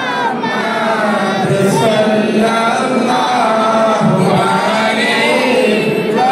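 Many voices chanting together in unison, a group moulid recitation sung as a devotional chant, continuous and loud.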